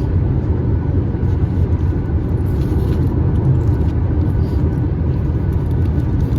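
Steady low road rumble of a moving car, heard from inside the cabin: tyre and engine noise with no sudden events.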